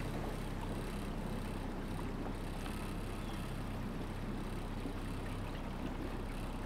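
Boat engine running steadily with a low, even hum as the boat moves along the water.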